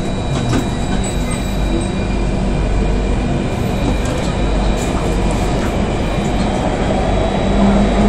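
Inside the carriage of an SMRT Circle Line C830 (Alstom Metropolis) metro train: steady train noise with a faint steady whine running through it, swelling a little near the end.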